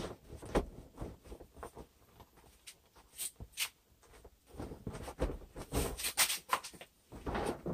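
Rustling and crinkling of a Kmart air mattress being pushed and smoothed into place by hand, in irregular patches of short crackles that are busiest about five to six seconds in.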